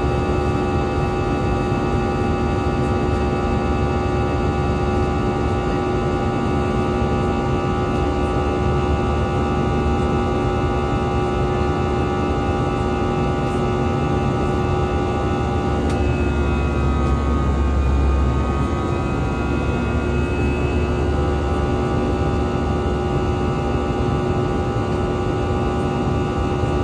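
Airbus A320 jet engines running at climb power: a steady drone with a layer of whining tones. About sixteen seconds in, the higher whine slides down in pitch and partly fades while the low rumble briefly swells, then the drone steadies again.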